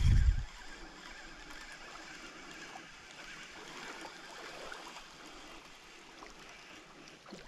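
A short low thump on the microphone at the very start, then faint lakeside ambience: small ripples lapping against the shore.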